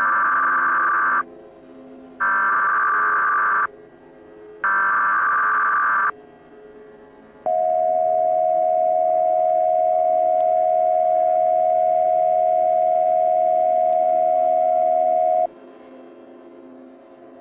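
Emergency Alert System tones: three loud bursts of SAME header data, each about a second and a half long with short gaps between them, then one steady attention tone held for about eight seconds that cuts off sharply. The sequence announces an emergency broadcast message.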